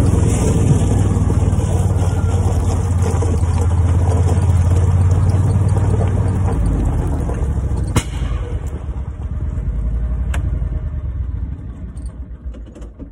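Gator utility vehicle's engine running as it drives over gravel, easing off partway through with a couple of sharp clicks, then dying down near the end as the vehicle comes to rest.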